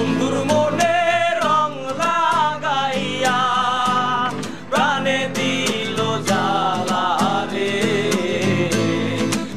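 Background music: a Bengali song, a melody line over a steady beat.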